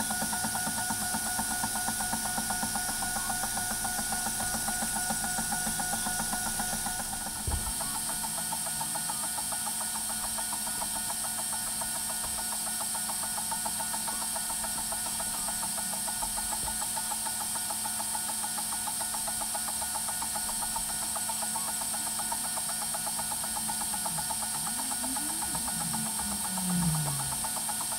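Ortur Laser Master 3 laser engraver at work: its stepper motors buzz rhythmically as the laser head sweeps over the board, over a steady hum. There is a knock about seven seconds in, and near the end the motor pitch glides up and down as the head changes speed.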